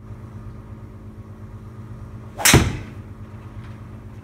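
A golf club swung through and striking a teed ball about two and a half seconds in: a quick swish ending in one sharp crack, with the ball hitting the simulator's impact screen a split second later. A steady low hum of the indoor bay runs underneath.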